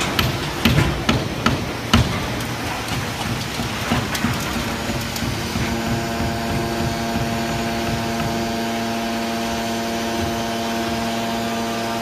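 Hydraulic can baler running: a few sharp knocks in the first two seconds, then from about six seconds in a steady machine hum with a whine in it.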